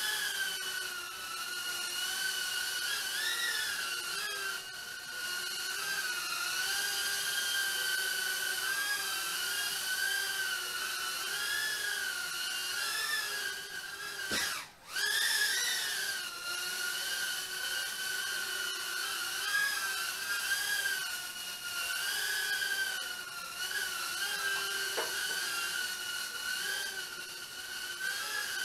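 Eachine M80S micro quadcopter's four small 8520 brushed motors and propellers whining in flight, the pitch wavering up and down as the throttle changes. About halfway through the whine cuts out for a moment and spins straight back up higher.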